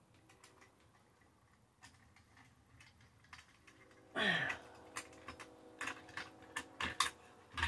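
Small metallic clicks and taps of a metal light fixture and its wires being handled and fitted together during wiring, sparse at first and then a quick run of sharp clicks in the second half. A brief hum of voice comes just before the run of clicks.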